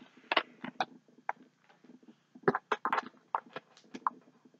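Handling noises of an unboxing: a plastic DVD case is put down and the next item is rummaged out of a box. A string of sharp clicks, taps and rustles, busiest near the start and again in the second half.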